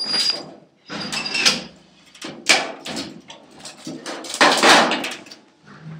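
Handling noise from work on a gas heater's wall cavity: a series of irregular scrapes and knocks, with a brief high squeak about a second in.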